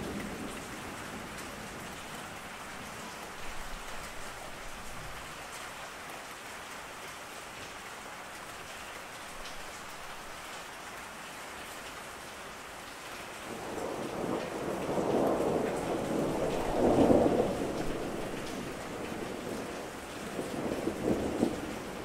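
Steady rain with rolling thunder. Past the middle, a long rumble swells and peaks, and a shorter one follows near the end.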